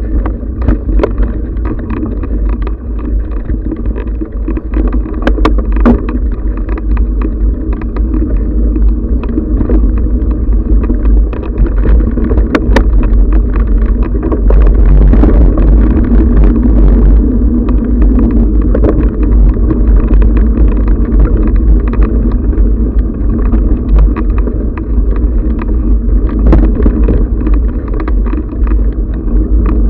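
Ride noise from a camera mounted on a mountain bike on a dirt forest singletrack: a steady low rumble with frequent knocks and rattles from bumps in the trail, louder from about halfway through.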